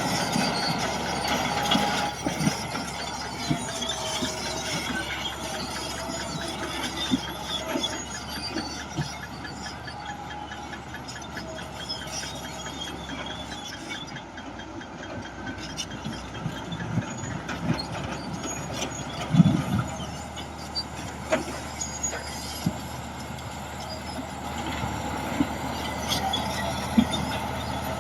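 Tracked heavy earthmoving machinery at work: diesel engines running under load, with irregular metallic knocks and clanks throughout. The loudest knock comes about 19 seconds in, and a wavering squeal runs through the first few seconds.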